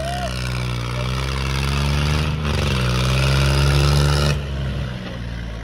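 John Deere tractor's diesel engine running hard under load while pulling a harrow through ploughed soil. Its pitch sags briefly about halfway through and then picks back up. The sound changes abruptly near the end.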